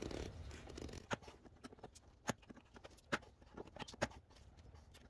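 Faint, irregular clicks and taps as a broken, stuck coolant hose clamp is worked at by hand.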